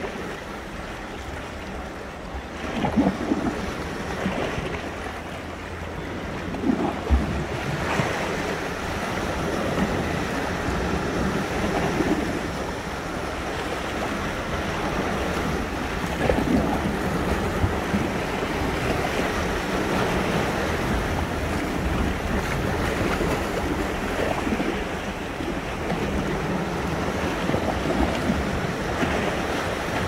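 Sea waves washing steadily onto the shore, a continuous rushing surf with a few louder surges about three and seven seconds in.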